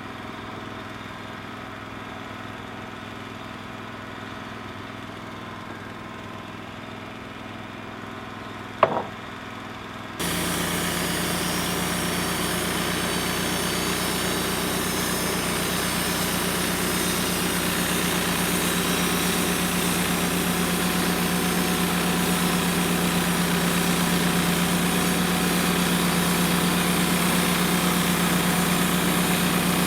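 An engine running steadily, then about ten seconds in the sound jumps abruptly to a louder, brighter engine noise that holds steady. Just before the jump there is one brief sharp sound.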